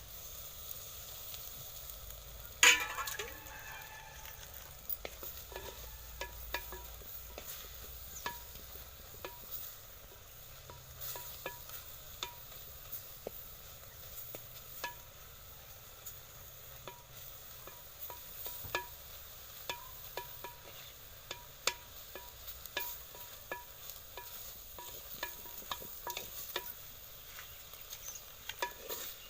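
Vegetables frying in hot oil in a pan: a steady sizzle with frequent clicks and scrapes of a utensil stirring. A loud metallic clank against the pan comes about three seconds in.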